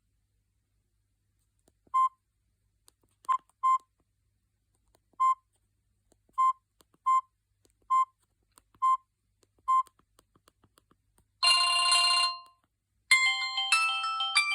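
Samsung GT-E1080i mobile phone sounding its built-in tones: about nine short single-pitched beeps at uneven intervals, then a buzzy tone lasting about a second, then a ringtone melody of quick stepping notes starting near the end.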